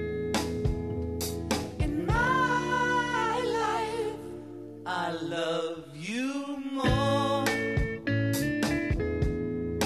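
A song plays: plucked guitar notes, with a singer holding long, wavering notes through the middle.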